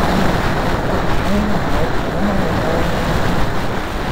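Dirt bike engine running at speed on rough ground, its pitch rising and falling with the throttle, under heavy wind rush on the microphone.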